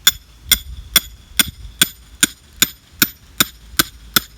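A hammer pounding a steel rebar stake into the ground: eleven sharp metal-on-metal strikes in a steady rhythm, about two and a half a second, each with a short ring.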